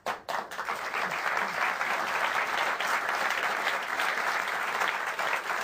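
A large audience applauding steadily, a dense patter of many hands clapping at once.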